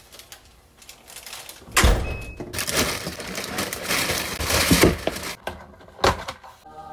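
Thin plastic carry-out bag rustling and crinkling loudly as takeout is pulled out of it, starting with a thump about two seconds in. A short knock follows near the end.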